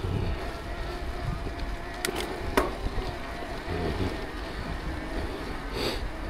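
Mountain bike rolling along a dirt trail, heard from a bike-mounted microphone: a steady low rumble of tyres and wind on the microphone, with two sharp clicks or rattles about two and two and a half seconds in.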